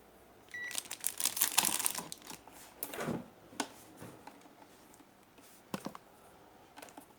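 Handling noise at a workbench: a stretch of rustling followed by a few scattered clicks and taps, with a brief high beep about half a second in.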